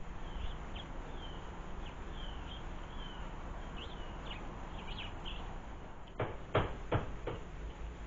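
Small garden birds give short, high chirps through the first five seconds or so over a steady hiss. Then come four sharp taps a little after six seconds in, from tits knocking against the hanging glass bowl feeder as they feed.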